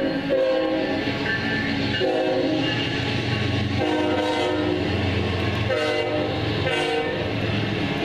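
CSX diesel locomotive sounding its horn in a string of blasts of varying length over the rumble and clatter of the passing intermodal train.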